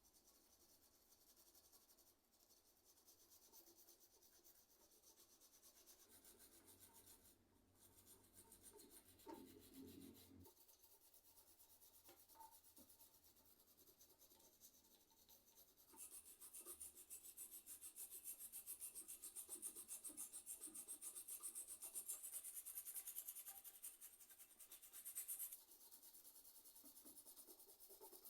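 Rapid back-and-forth scrubbing of ICL membrane keyboard parts being cleaned by hand. It gets louder about halfway through and eases off a few seconds before the end.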